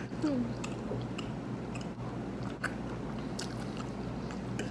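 A person chewing a mouthful of noodles, with small scattered mouth clicks, over a steady low hum.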